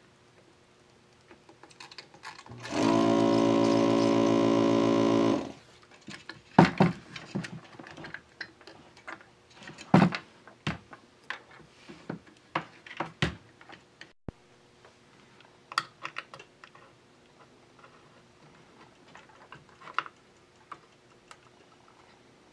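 Vacuum desoldering gun's pump running for about two and a half seconds, a steady buzz as it sucks solder off the power-supply capacitor joints. After it, scattered light clicks and taps of parts and tools being handled on the circuit board.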